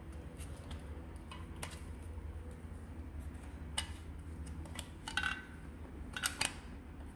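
Plastic clicks and small rattles from a self-cleaning slicker brush being handled, its metal pins pushed out and retracted. The louder clicks come in clusters about four, five and six seconds in.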